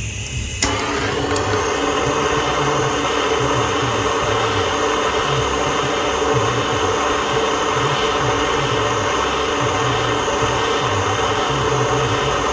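A small electric machine motor switched on with a click about half a second in, then running steadily with a strong hum.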